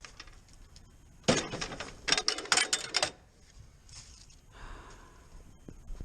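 Clattering and clinking of hard objects being handled, with one sharp clank about a second in and a quick run of louder clanks a second later.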